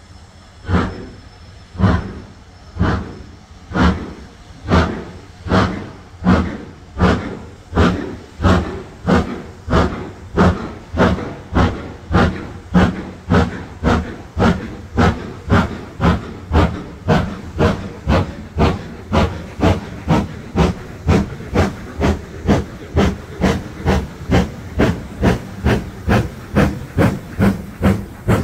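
Steam locomotive exhaust beats from Black 5 4-6-0 No. 45212, a two-cylinder engine, pulling away: the chuffs quicken steadily from about one a second to about two a second as it gathers speed.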